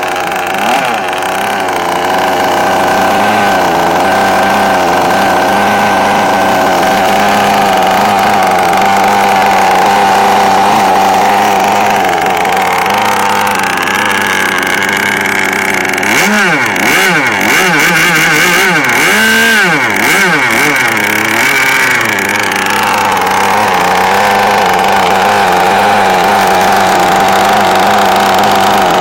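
An engine running steadily, its pitch rising and falling several times in quick succession about halfway through, as when the throttle is blipped.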